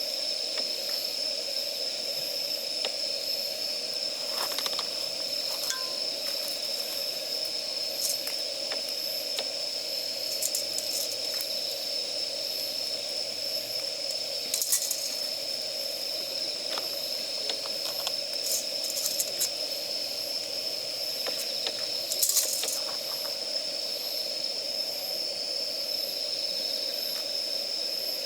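Damp firewood burning in a campfire: scattered sharp crackles and pops, a cluster about fourteen seconds in and another near twenty-two seconds, over a steady hiss.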